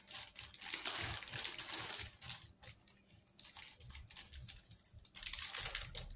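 Plastic bags of model-kit parts crinkling and the plastic sprues inside clicking together as they are handled, in irregular crackly bursts with a lull about halfway through.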